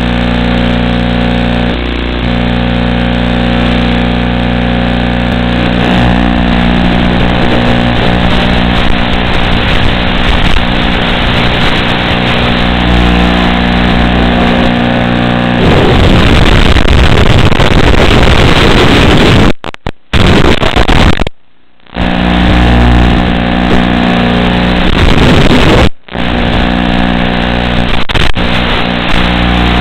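FPV quadcopter's brushless motors and propellers running, picked up by the drone's onboard microphone as a steady multi-toned buzz. The sound turns into a louder, rougher rush for a few seconds past the middle as the quad is pushed to high throttle. Several times the sound drops out briefly.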